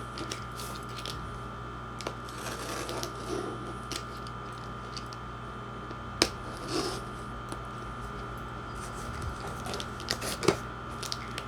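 Objects being handled: soft scattered rustling with two sharp clicks, one about halfway through and one near the end, over a steady faint hum.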